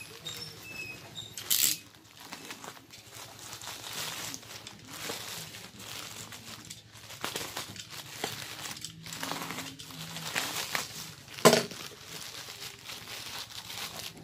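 Plastic courier mailer bag crinkling and rustling as it is cut and torn open with a box cutter and unwrapped. There is a louder short rasp near the start and a sharp knock about eleven seconds in.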